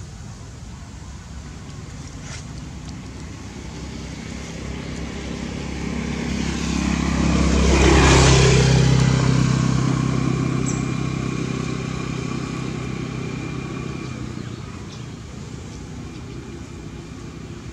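A motor vehicle passing by: its engine and tyre noise grows louder, is loudest about eight seconds in, then fades away.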